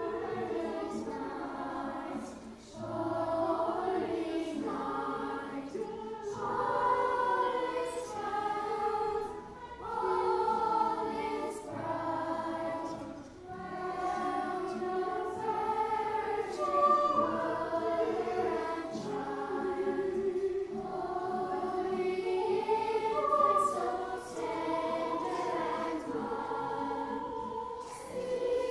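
Children's school choir singing in a church, in phrases that rise and fall with short breaths between them.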